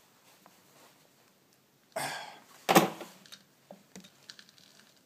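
A man coughs twice about two seconds in, the second cough louder; a few faint clicks follow.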